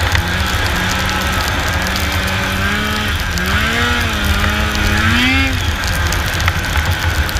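Snowmobile engine running under way, its pitch holding and then rising and falling with the throttle, over a constant low rumble.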